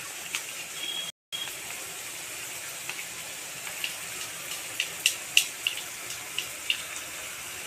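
Chopped onions frying in hot mustard oil in a kadai: a steady sizzle with scattered crackles and pops, thickest from about five to seven seconds in, and a brief break just after a second in.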